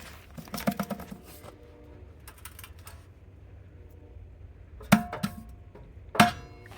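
Light clicks and rattles of metal tools, then two loud sharp metallic clanks about a second and a half apart, each ringing briefly.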